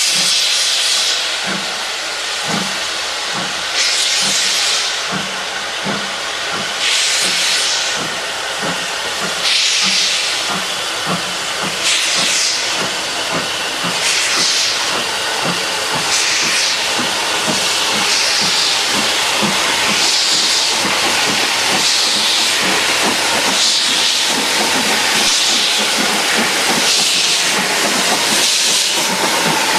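Two steam locomotives, J72 0-6-0 tank 69023 piloting LMS Stanier 2-6-0 42968, starting a freight train. Their exhaust beats are slow and widely spaced at first and quicken steadily, over a constant hiss of steam from the open cylinder drain cocks.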